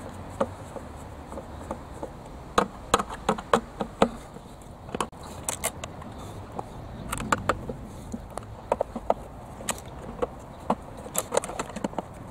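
Irregular clicks, taps and small cracks of a screwdriver and fingers working at the broken-open plastic housing and internal parts of an air fryer.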